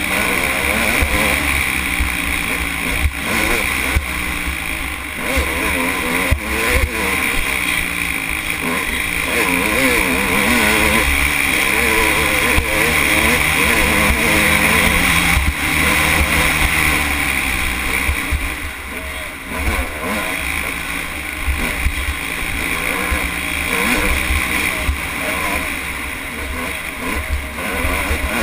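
Dirt bike engine under way, its pitch rising and falling again and again as the rider works the throttle, over a steady low wind rumble on the bike-mounted microphone.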